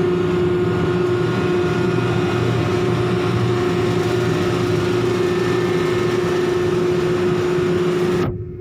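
Heavy machinery running steadily during coal unloading on a ship, a loud constant engine drone with a prominent steady hum. Near the end it cuts off abruptly, leaving a quieter low rumble.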